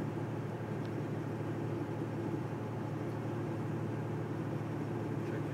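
Semi truck's diesel engine running steadily while the truck drives on the road, heard inside the cab as an even drone mixed with road noise.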